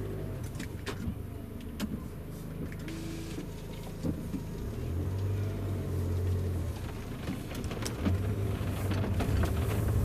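Cabin sound of a Land Rover Discovery Sport pulling away: low engine and road rumble that grows louder toward the end, with irregular light knocks and clicks from the rear pillar trim. The owner suspects the cheap trim is flexing.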